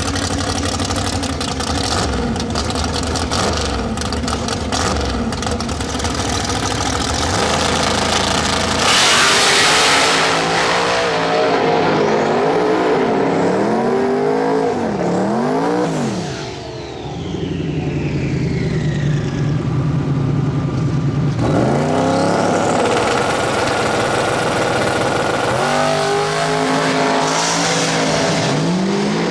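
Drag race car engines: a steady rumble at first, a loud burst about nine seconds in, then engines revved up and down several times, with pitch climbing again near the end as a car accelerates.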